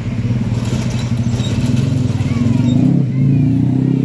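Heavy truck's diesel engine running close by, a steady low drone that grows a little louder about three seconds in.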